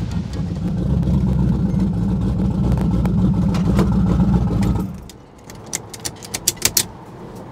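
Twin-turbo first-generation Chevrolet Camaro's engine running loudly at low speed with an uneven, lumpy beat as the car rolls past. About five seconds in the engine sound drops away sharply, and a quick run of sharp clicks follows.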